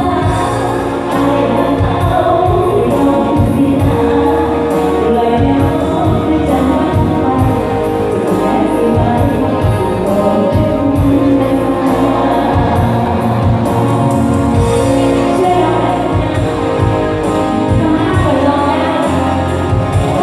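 A live Thai band playing a song, with singing over a steady, driving drumbeat.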